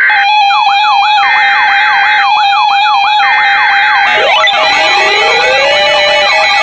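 Layered electronic emergency-alert siren tones: a steady tone, a higher tone switching on and off about once a second, and a fast siren sweep repeating several times a second. About four seconds in, more siren glides join, rising slowly in pitch.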